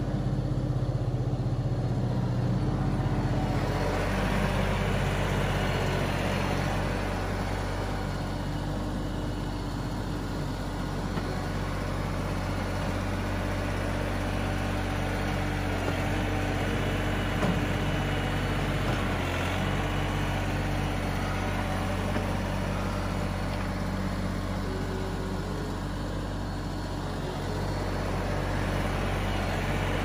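Kioti DK6010SE compact tractor's diesel engine running steadily under load while the front-loader bucket works loose soil, the drone swelling and easing a little as the tractor moves nearer and farther.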